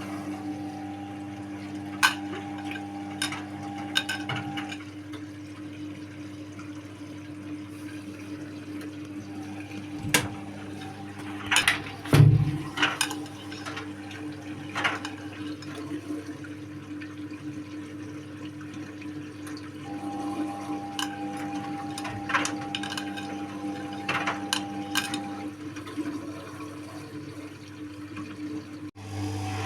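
Indesit WIU81 front-loading washing machine running its quick 30-minute programme with water moving in the drum. A steady mechanical hum runs under the water, a higher tone comes and goes, and scattered clicks and knocks sound, the loudest about 12 seconds in.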